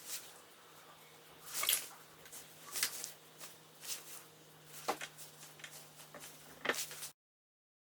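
Scattered short scratchy rustles of hands and materials working on paper, with four louder ones, over a faint steady hum; the sound cuts off abruptly near the end.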